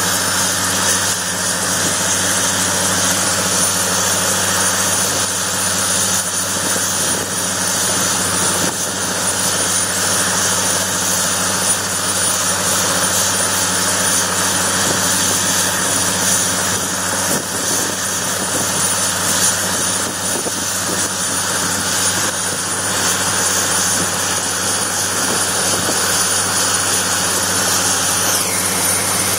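Air-ambulance turbine helicopter idling on the ground with its main rotor turning: a steady engine and rotor din under a constant high-pitched turbine whine.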